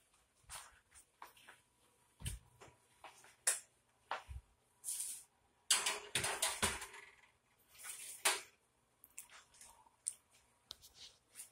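Scattered knocks and clicks, then a metal baking sheet sliding and clattering onto an oven's wire rack about six seconds in.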